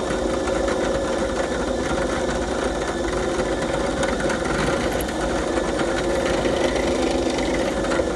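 Benchtop drill press running with a steady hum while a thin bit bores a small blade-entry hole at an angle through wood for a scroll-saw cut.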